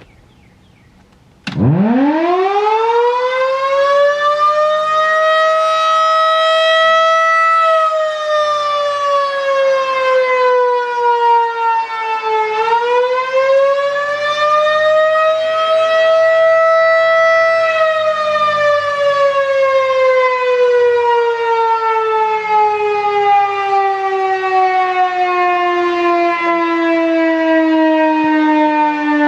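Outdoor warning siren sounding its weekly test wail. It comes on suddenly about a second and a half in and sweeps quickly up in pitch. It then climbs, dips and climbs again before sliding slowly down in one long falling wail.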